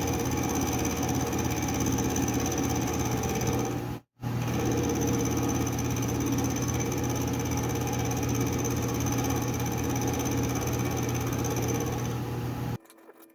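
Metal lathe running steadily with a constant hum and high whine while a part is turned down to size. The sound drops out briefly about four seconds in and stops abruptly near the end.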